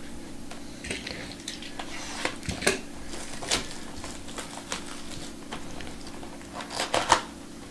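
Fingers working at a cardboard trading-card hobby box to open it: scattered taps, clicks and scrapes of cardboard, with a few sharper clicks around the middle and near the end.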